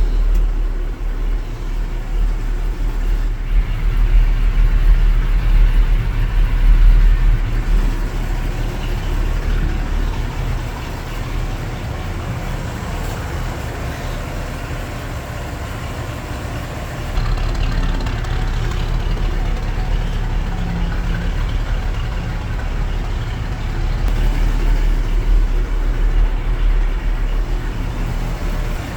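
V8 engine of a Toyota Land Cruiser FJ45LV idling, a steady low rumble that swells louder a few times.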